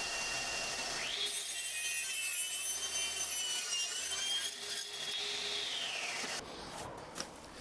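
Table saw cutting pine stud timber, trimming small pieces square. The saw's whine rises about a second in, holds steady through the cut, and falls away about six seconds in, leaving a quieter run-down.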